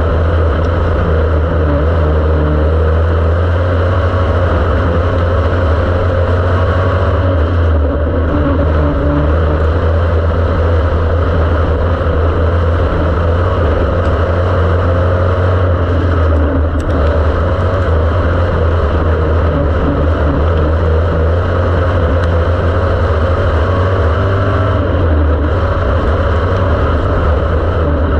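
Dirt-track race car's engine running hard at racing speed, heard from inside the open cockpit as a loud, steady, deep drone. Its pitch wavers, and the sound dips briefly about every eight seconds.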